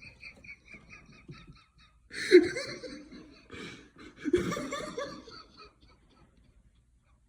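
A person laughing: a quick run of short high squeaky pulses first, then two louder bursts of laughter about two and four and a half seconds in.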